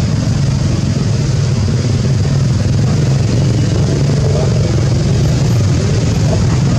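Loud, steady low rumble that keeps on without a break.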